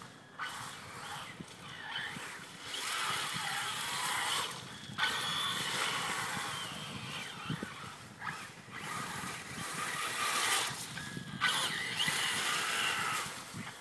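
Electric motor of an Axial Exo Terra RC buggy whining up and down in pitch as the throttle is worked, cutting out briefly a few times. Under it is the rush of its tyres over leaf-strewn pavement.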